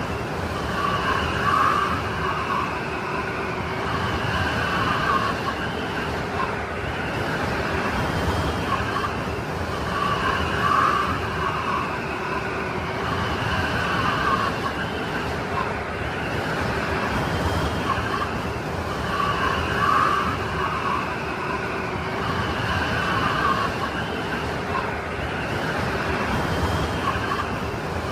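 Snowstorm wind blowing steadily, a whistling noise that swells and eases, with the same pattern repeating about every nine seconds.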